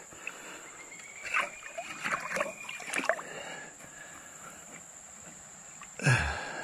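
Digging out a metal-detector target in a shallow river bed: water sloshing and splashing, with a few knocks and scrapes of the digging tool. A short voice sound comes near the end.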